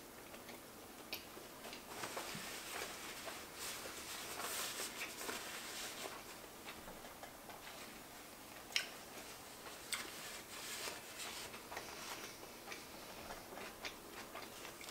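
Close-miked chewing of a crispy quesabirria crunchwrap: soft, wet mouth clicks and smacks, with one sharper click about nine seconds in. A paper napkin rustles as fingers are wiped.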